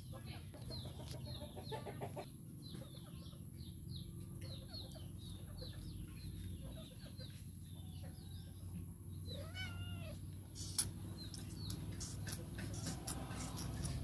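A domestic cat gives a short meow about ten seconds in, over many quick, high chirps from small birds or chicks. A single sharp click follows just after.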